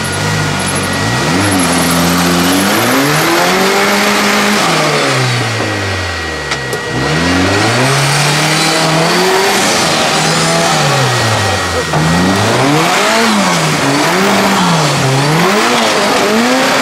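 Engine of a custom-built 4x4 off-road buggy revving hard as it churns through a deep mud pit. The pitch climbs and falls repeatedly, drops low about halfway through, and near the end rises and falls about once a second. A steady hiss of spinning tyres and splashing mud runs underneath.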